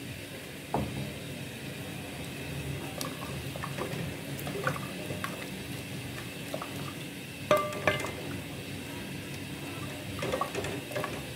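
Milk simmering with vermicelli in a metal pot, bubbling steadily, while a silicone spatula stirs through it, giving a few light knocks and scrapes against the pot.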